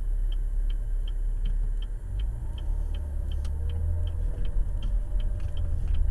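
Inside a car: a turn-signal indicator ticking steadily, about two and a half ticks a second, over a low engine hum that grows louder about two seconds in.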